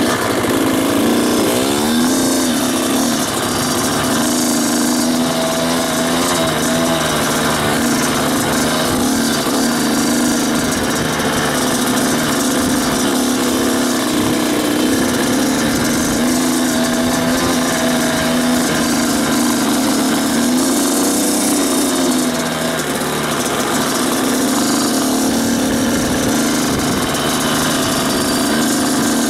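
Two-stroke dirt bike engine running, its pitch rising sharply about a second in and then drifting up and down as the throttle is worked.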